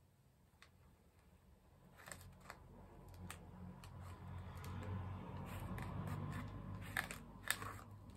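Palette knife scraping and spreading white paint across a plastic stencil, a soft scratching that builds through the middle, with several sharp clicks and taps of the knife on the stencil. The two loudest clicks come near the end.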